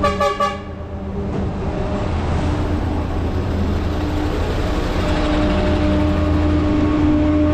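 Road traffic: a motor vehicle's engine hum grows steadily louder over a constant low rumble, with a short pitched sound right at the start.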